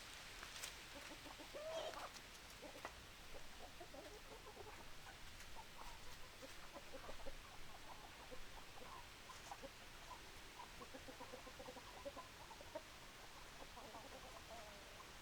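Chickens clucking: a steady scatter of short, low calls from the hens, with a louder, slightly longer call just before two seconds in.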